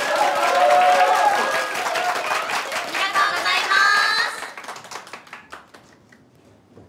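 Live idol song with singing and audience clapping, ending about four and a half seconds in; scattered clapping then fades out.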